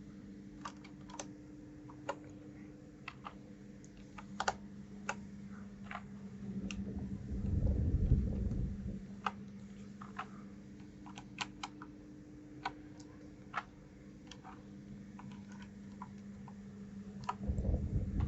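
Scattered, irregular clicks and clacks of keys on a 1stPlayer DK 5.0 mechanical keyboard, over a low steady hum. A louder low rumble swells about eight seconds in and again near the end.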